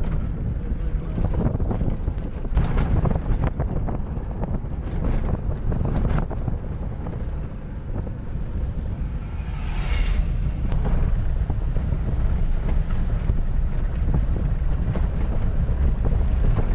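Low road rumble and wind buffeting the microphone inside a small moving car with a window open, with a few sharp knocks from the car jolting over the road.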